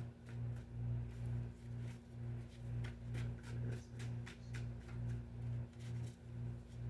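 Soft background ambient music: a low drone that swells and fades evenly a little over twice a second, over a steady higher tone.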